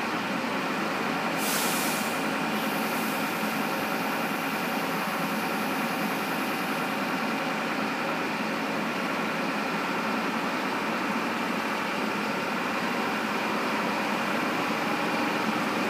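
Bus diesel engine idling steadily, heard from inside the bus, with a brief hiss about a second and a half in.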